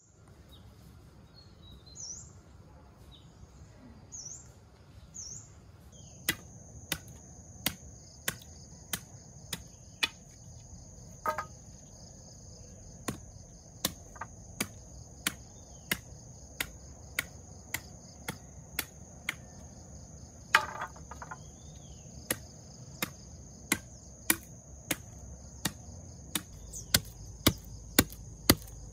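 Short rising bird chirps a few times, then from about six seconds a steady high insect drone with regular sharp chops, about three every two seconds, of a blade cutting into bamboo poles to point their ends into stakes.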